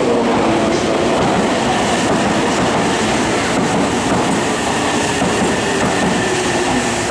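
An electric train passing through the station on the track beside the platform: a steady, loud rail running noise.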